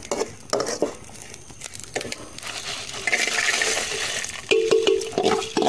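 Fried dried red chillies and roasted coriander and cumin seeds tipped from a steel plate into a steel kadai of fried curry leaves: a dry rustling patter as the spices slide in, between clicks and scrapes of a perforated steel spatula. Near the end the plate and pan clink with a short metallic ring.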